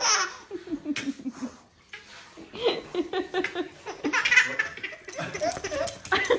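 A person laughing in several bouts of quick giggles, with a short lull about two seconds in.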